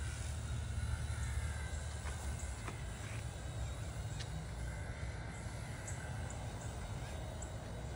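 Wind buffeting the microphone, a steady low rumble, with faint high ticks over it.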